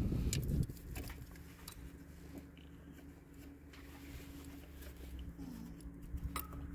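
Faint handling noises of hands working around an engine's belt tensioner and pulley: a brief rustling rumble at the start, then a few light clicks over a steady low hum.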